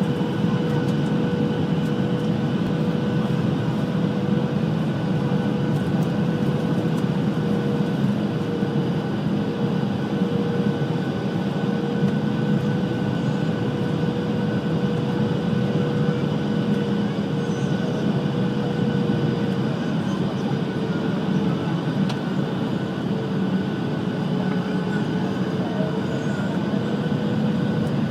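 Airliner cabin noise: a steady low drone with a constant mid-pitched whine running through it, which sags slightly in pitch for a few seconds near the end.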